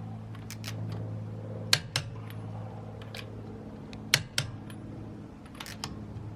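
Click-type torque wrench clicking sharply on a lug nut, each click a pair a quarter second apart, three times: the nut reaching its set torque of 80 ft-lb. A steady low hum runs underneath.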